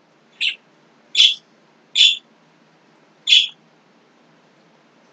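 A small bird chirping: four short, high chirps spread over about three seconds.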